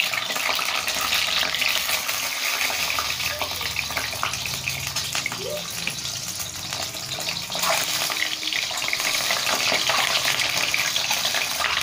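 Peeled boiled eggs frying in hot oil in an iron kadhai: a steady sizzle with fine crackling, growing a little louder about eight seconds in.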